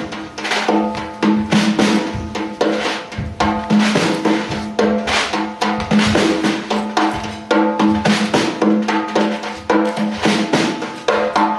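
Frame drum played by hand in a fast, uneven improvised rhythm of many strikes a second, over a steady low ringing tone.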